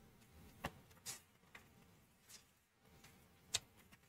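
Near silence broken by a few faint clicks and soft rustles from a hardcover picture book being handled and opened, with one sharper click about three and a half seconds in.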